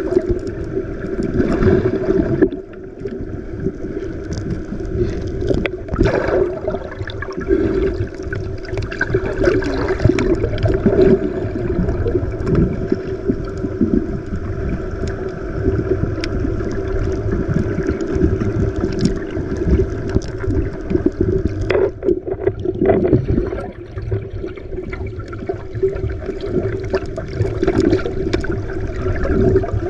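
Small boat's engine running steadily, with water sloshing and splashing against the hull in irregular surges.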